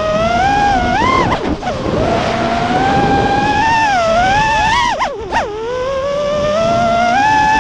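FPV quadcopter's brushless motors whining, the pitch rising and falling with the throttle and dropping sharply twice as the throttle is chopped for a move, heard from the quad's onboard camera.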